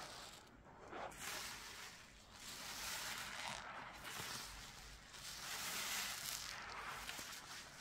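A sponge loaded with thick Fabuloso and dish-soap lather being squeezed and worked, a wet sudsy hiss that swells and eases several times.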